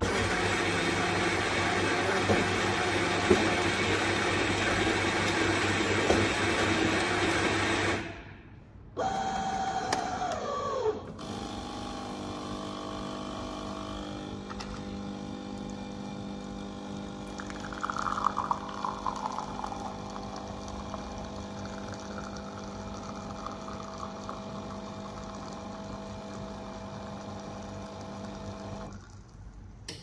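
Gluons fully automatic coffee machine brewing an espresso. Its built-in grinder grinds beans loudly for about eight seconds, a motor whirs briefly with a falling pitch, then the pump hums steadily while the espresso pours, stopping near the end.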